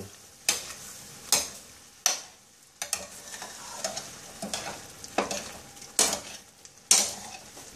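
Metal spoon stirring and scraping thick black bean sauce around a hot stainless steel skillet, about one stroke a second, with the sauce sizzling underneath as it thickens with potato starch.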